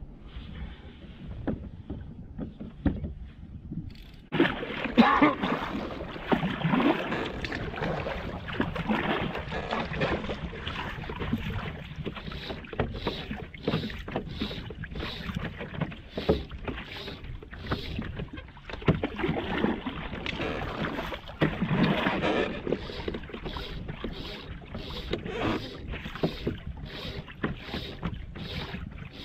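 Water slapping and splashing against a kayak's hull, louder from about four seconds in, with the splashes coming in a regular rhythm of roughly three every two seconds through the second half.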